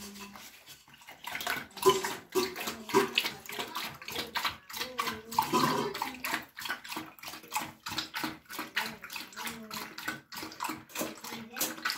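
Retriever puppy eating wet food from a stainless steel bowl: rapid wet chomping and licking, several mouthfuls a second, with the bowl knocking.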